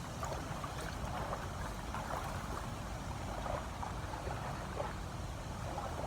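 Steady rush of river water from the falls, an even noise with a low rumble under it.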